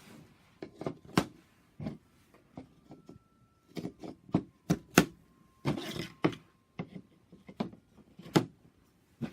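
Wooden toy train track pieces from a Thomas Wooden Railway set clacking and knocking against each other as they are picked out and fitted together. The knocks come one by one at uneven intervals, about a dozen in all.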